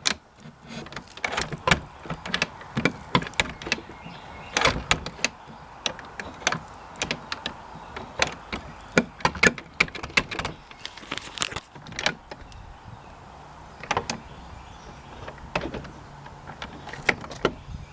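Irregular metallic clicks and knocks, several a second: a mortise lock set being handled and fitted into a door, its parts clinking against each other.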